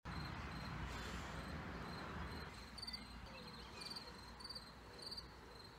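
Faint, regular high-pitched chirps, one short pulsed chirp about every half second, over a low hum that fades after the first couple of seconds.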